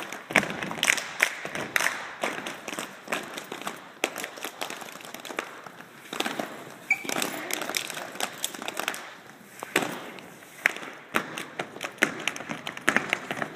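Body percussion by a group of performers: hand slaps on the body and claps, coming in runs with short lulls.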